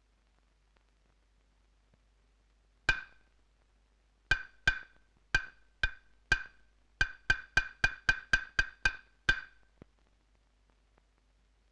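Hyoshigi wooden clappers struck as sharp, ringing clacks. One clack comes about three seconds in, then spaced strikes quicken into a fast run, closing on a single last clack.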